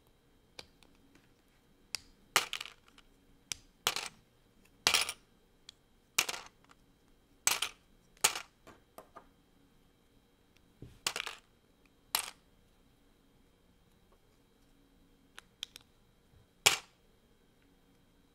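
LEGO plastic bricks being taken apart by hand: sharp clicks and snaps at irregular intervals, some in quick pairs, with a pause of a few seconds about two-thirds of the way through.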